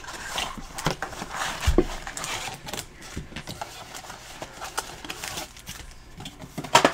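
A cardboard trading-card blaster box being opened and its wrapped card packs handled: rustling and crinkling with many small taps and clicks, and a sharp knock near the end.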